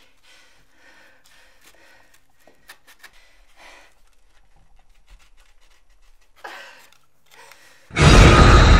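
A young woman's quiet, strained breathing and faint scraping as she works a wooden stick against the rope tied around her ankle. Near the end, a sudden loud scary-music sting with a deep low hit comes in.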